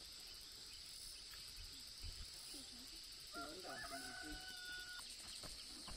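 A rooster crows once, about halfway through: a single call of about a second and a half that rises and then holds, heard faintly over a steady high insect drone.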